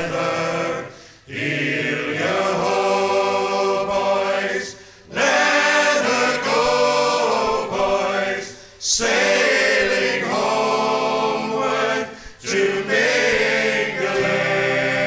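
Choir singing, in phrases of three to four seconds with short breaks between them.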